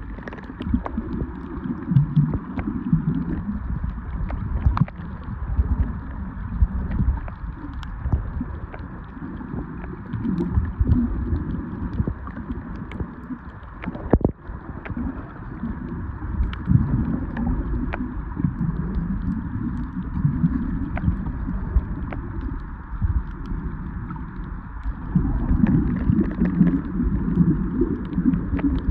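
Underwater sound picked up by a camera under the sea over a reef: a muffled low rumble of moving water that swells and fades every few seconds, with many short sharp clicks scattered through it.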